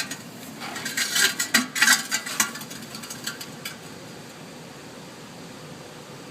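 Light metallic clinking and rattling, a quick run of sharp clicks that stops about three and a half seconds in, leaving a steady background hiss.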